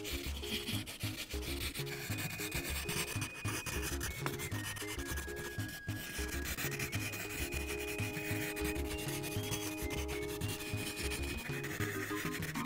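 Prismacolor colored pencil shading on paper, with repeated back-and-forth rubbing strokes as an area of fur is filled in.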